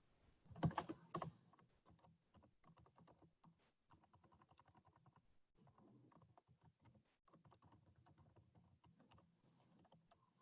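Typing on a computer keyboard: faint, irregular keystrokes, a little louder for a moment about a second in.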